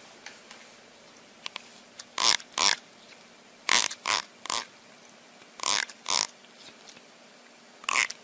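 A cat gagging with short, raspy, breathy hacks that come in groups of two or three, four times over.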